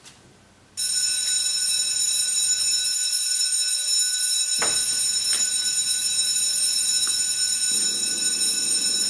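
Mobile phone ringing: a loud, steady, high electronic tone that starts suddenly just under a second in and goes on without a break. A few knocks come in the middle, and a duller noise joins near the end.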